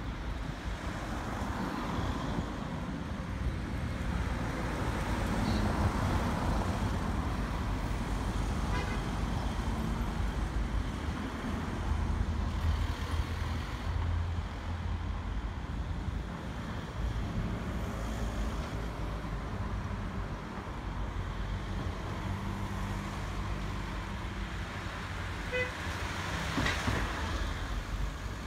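Road traffic: cars passing along a street, the rumble swelling and easing as they go by.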